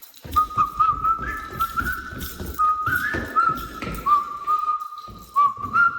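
A person whistling a tune: a single clear note that steps and slides between pitches, with irregular low thumps underneath.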